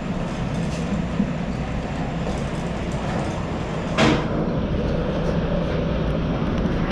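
Steady low rumble inside an indoor ice rink, with one sharp knock about four seconds in that rings briefly.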